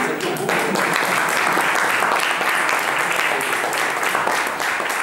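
Audience applauding: dense clapping that swells about half a second in and holds steady.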